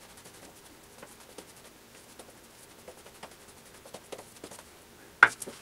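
Synthetic shaving brush working shaving cream onto the face: a run of soft, short brushing strokes, with a sharp click near the end.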